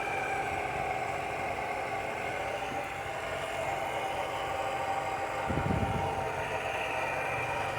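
Small air compressor running steadily, pumping charcoal smoke from a homemade smoke generator into a car's engine intake to find a vacuum leak. A brief low rumble comes about two-thirds of the way through.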